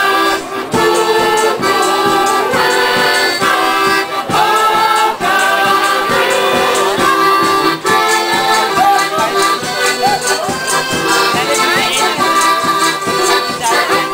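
Women's folk choir singing a Polish folk song, accompanied by accordions and a bass drum keeping a steady beat.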